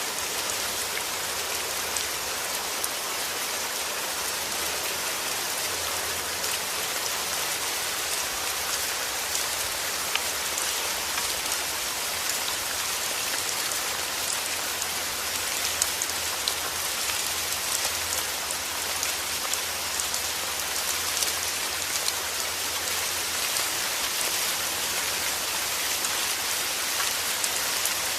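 Steady rain falling on a surface, an even hiss with many small drop ticks throughout.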